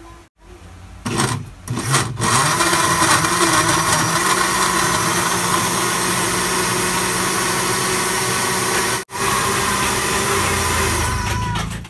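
Countertop electric blender motor pulsed twice about a second in, then running steadily as it blends a thin pink liquid mix, its pitch rising as it comes up to speed. It cuts out for an instant near nine seconds and winds down near the end.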